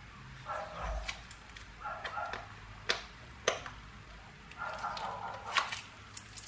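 A few sharp plastic clicks and taps from handling a plastic container and its lid, over repeated short calls in the background, several times.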